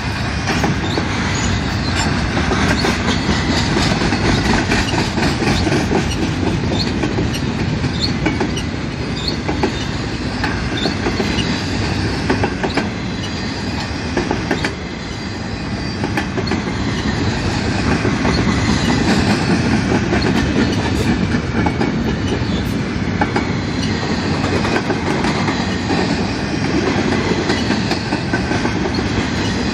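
Freight train of container cars rolling past, steel wheels clicking over rail joints in a steady clickety-clack under a continuous rumble, with a few brief high wheel squeals.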